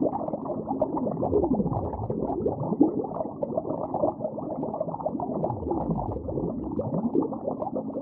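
Muffled underwater ambience: dense bubbling and gurgling water, with slow pitch sweeps that fall and then rise again a few times.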